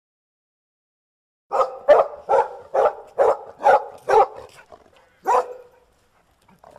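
A dog barking: after a second and a half of silence comes a quick run of about seven sharp barks, two or three a second, then one more bark about a second later.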